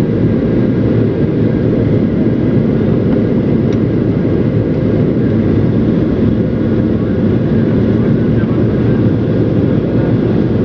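Steady, loud low rumble of an airliner's engines and airflow, with a few faint steady tones above it.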